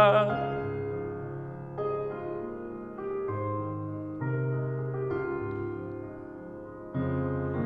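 Keyboard accompaniment to a slow worship song, playing soft held chords that fade and change to a new chord every second or two.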